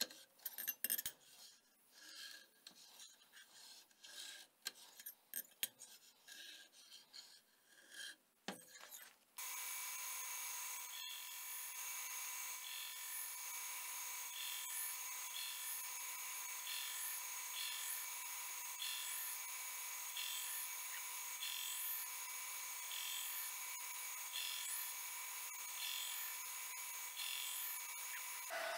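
Steel scribe scraping along a knife blade's edge in short, irregular strokes, marking the centre line before the edge bevels are ground. After about nine seconds it gives way to a steady whine from a running belt grinder, with a faint pulse about once a second.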